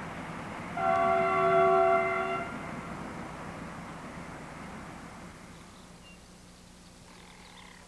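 A train horn sounds once, a steady multi-tone chord held for under two seconds, over a background of steady noise that slowly fades away.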